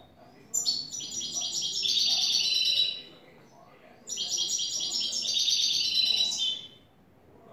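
European goldfinch singing: two fast twittering phrases of rapid repeated high notes, each about two and a half seconds long, with a short pause between.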